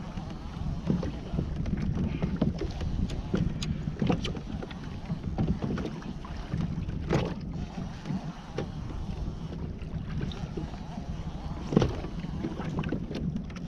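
Wind buffeting the microphone over water sloshing against a fishing kayak's hull, with scattered clicks and knocks from the boat, the sharpest about seven and about twelve seconds in.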